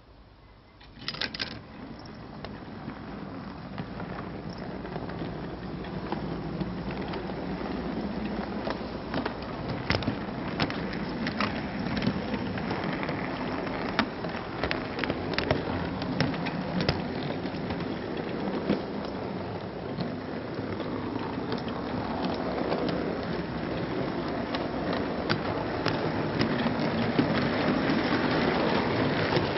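O gauge model train running on its track, carrying the camera wagon: a short clatter as it moves off, then steady rolling wheel noise with many sharp clicks, growing louder as it gathers speed.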